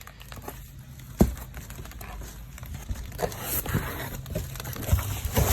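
Cardboard shipping box being opened by hand, with packing material crinkling and tearing. There is a sharp knock about a second in, and the rustling grows busier toward the end.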